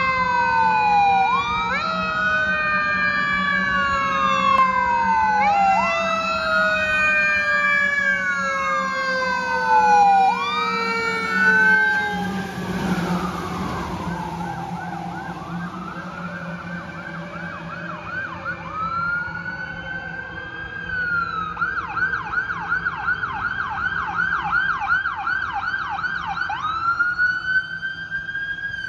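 Fire truck siren wailing in slow, overlapping sweeps, with a swell of engine and wet-road tyre noise as the truck passes about 13 seconds in. A second emergency siren, from an ambulance, then comes in with a slow wail, switches to a fast yelp a few seconds later, and goes back to a wail near the end.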